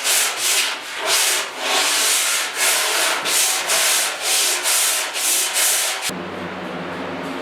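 Sandpaper rubbed back and forth by hand over a steel pickup running board, about two strokes a second. About six seconds in it stops abruptly, giving way to a steady low hum.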